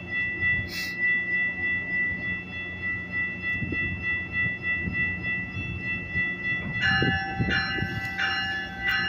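Metrolink commuter train standing at a platform with a low steady rumble and a steady high-pitched tone. About seven seconds in, the train's warning bell starts ringing, about two strokes a second, as the train gets ready to depart.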